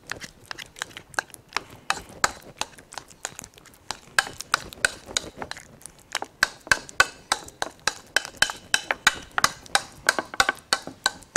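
A metal fork stirring cream cheese with mustard and Maggi sauce in a mixing bowl, clicking and scraping against the bowl in quick, irregular strokes, several a second.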